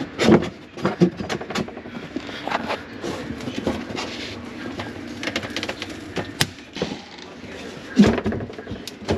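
Irregular knocks, clicks and scraping of hand work on cabinetry, with a louder knock about eight seconds in.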